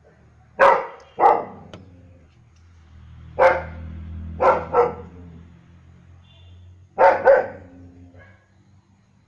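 German shepherd barking in short groups: two barks, then three, then two more near the end, with pauses between.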